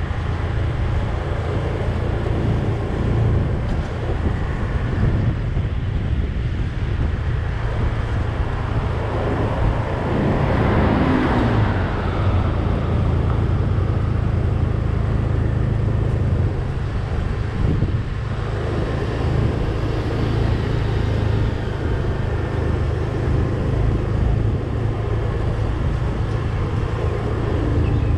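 Steady low engine rumble and road noise from a vehicle driving along a town street, with wind buffeting the microphone. About ten seconds in, the noise swells louder for a couple of seconds as traffic passes.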